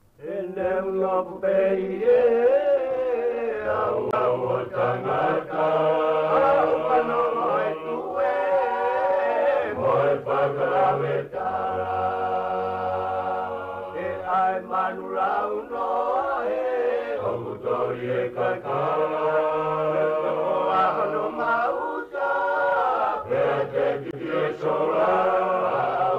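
Music: several voices singing together in chant-like harmony, holding long notes over a steady low bass line.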